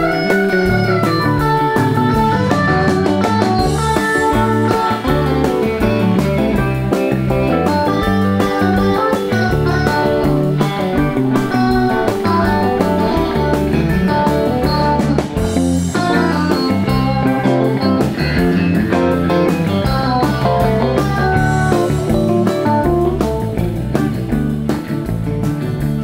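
Live rock band playing an instrumental jam: an electric guitar lead over bass guitar and drums.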